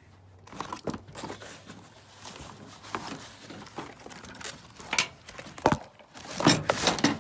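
Packaging being handled: the foam wrap and cardboard box of a light bar crinkling and rustling irregularly, with a few sharper scrapes and knocks that grow louder near the end.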